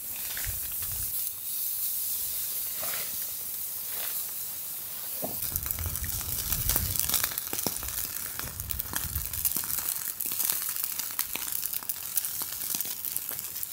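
Steaks sizzling on a wire grill over campfire coals, with fine crackling ticks from the fire. Wind rumbles on the microphone now and then, most around the middle.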